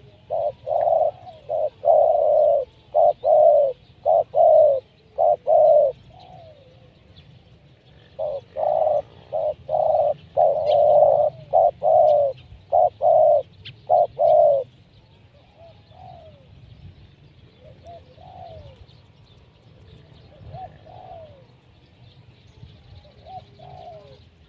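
Spotted dove cooing in two long runs of repeated coo notes, with a pause of about two seconds between them. After that come only a few faint short calls.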